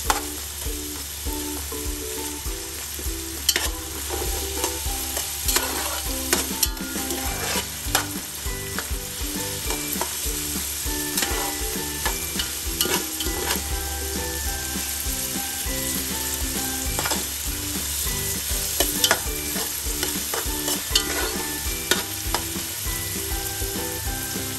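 Diced carrots and green chillies sizzling as they fry in hot oil in a steel pot, with a steel spoon stirring and now and then clinking and scraping against the pot.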